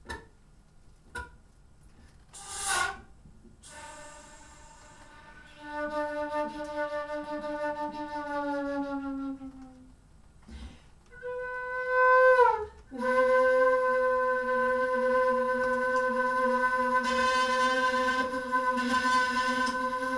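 Flute with a glissando headjoint playing low held notes. After two short clicks and a breathy burst of air, one tone slides slowly downward; a short tone then bends up and drops sharply; a long, steady note follows.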